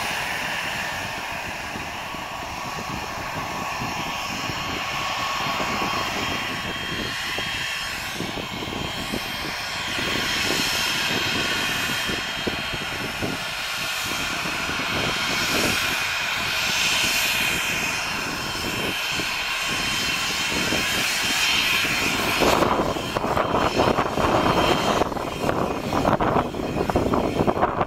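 Twin turbofan engines of a Cessna Citation XLS+ business jet running with a steady whine as it taxis and lines up. About 22 seconds in, the sound turns louder and rougher with a fluctuating rush as the engines go to takeoff power and the jet starts its takeoff roll.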